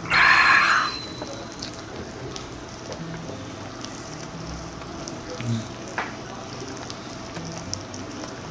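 Frozen pork belly sizzling steadily on a tabletop grill plate. It opens with a loud, breathy exclamation of about a second from a man who has just swallowed a shot of soju.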